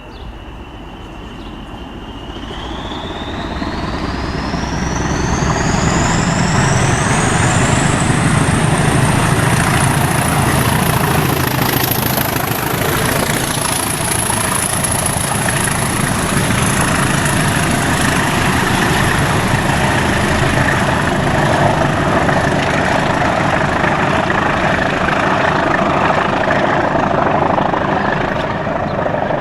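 Two Class 20 diesel locomotives working hard as they pull away under power, their engine noise building over the first few seconds and then holding loud and steady. Two high turbocharger whistles climb steeply together over about ten seconds, then hold at a high steady pitch.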